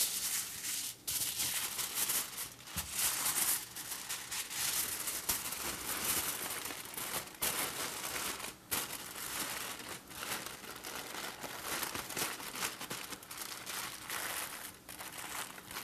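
Aluminium foil crinkling and crackling as it is folded and crimped by hand into a closed packet, a near-continuous rustle with a few brief pauses.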